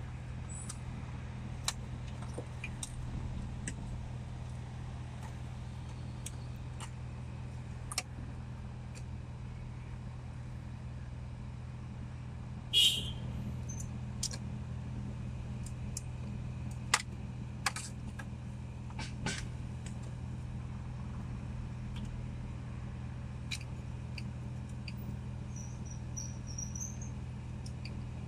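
Plastic wiring-harness connectors clicking and rattling as they are handled and pushed together at the back of a car's head unit, over a steady low hum from the car. The loudest click comes about halfway through.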